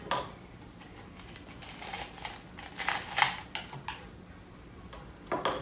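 Mike and Ike candies clicking and rattling as a hand picks through them in a clear plastic cup and drops them into a small glass jar: light, irregular ticks, a few close together in the middle and a brief clatter near the end.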